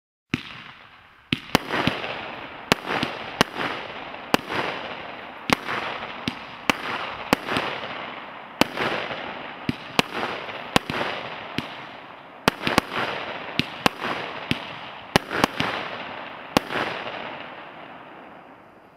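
TB156 Tropic firework battery firing: about 25 sharp bangs at an uneven pace, roughly one or two a second, each trailing off before the next. The last shot comes about three seconds before the end and the sound then fades away.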